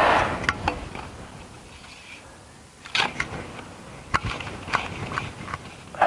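Short splashes of water, one at the start and one about three seconds in, each fading quickly, with scattered drips and light clicks between them.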